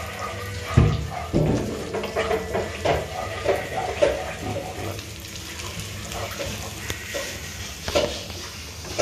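Kitchen clatter of cookware and utensils: two sharp knocks in the first second and a half, then lighter clicks and taps, over a steady hiss of butter frying in a pan.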